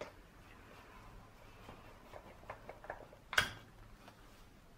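Faint clicks and taps of small metal and plastic parts of a throttle body's idle speed control valve being handled and taken apart with rubber-gloved hands. One sharper knock comes a little over three seconds in.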